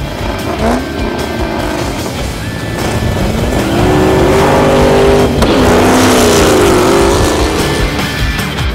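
Drag-racing cars launching off the line, a classic Ford Mustang fastback among them. The engines rev up hard, break off briefly about five seconds in as a gear changes, then pull again and fade as the cars run away down the track.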